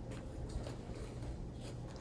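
Faint handling noises: a few light clicks and rustles over a steady low hum.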